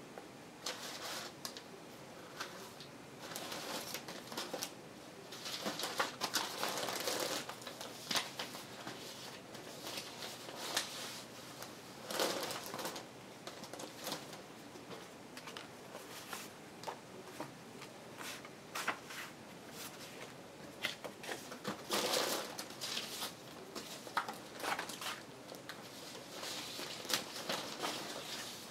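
Paper and card pieces rustling and crinkling as they are sorted through by hand, in irregular handfuls, with scattered light clicks and taps.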